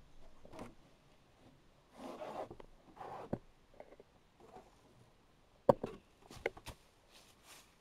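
Rustling and scraping handling noise from a moving handheld camera, then a few sharp clicks or knocks from about two thirds of the way through.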